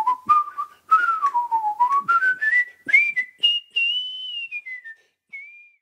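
A man pucker-whistling with his lips: a quick run of notes that dips, then climbs step by step to a high pitch. After a brief pause it ends on a short held note.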